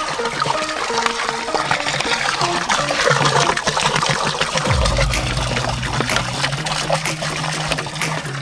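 Soda pouring in a steady stream from a large plastic bottle into a plastic drum, splashing onto foam, over background music.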